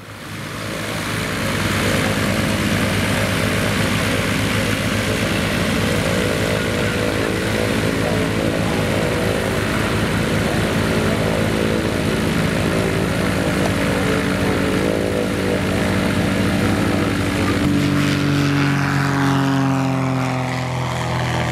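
ICP Savannah XL light aircraft's engine and propeller running steadily as it moves along the grass on the ground. Near the end it passes close by and the engine's pitch drops as it goes past.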